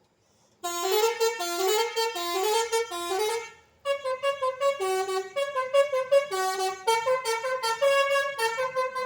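Indonesian bus 'telolet' multi-tone musical horn playing a quick tune of short stepped notes. It starts about half a second in, breaks off briefly a little after three seconds, then plays another run of notes.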